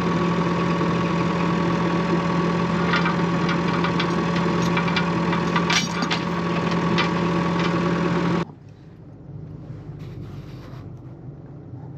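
A diesel farm tractor's engine running steadily. It stops abruptly about eight and a half seconds in, leaving a much quieter background with a few faint clicks.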